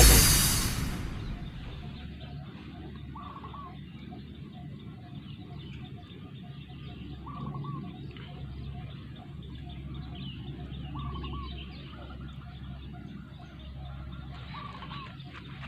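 Electronic dance music fading out over the first second or so, then outdoor background with a short bird call repeating about every four seconds.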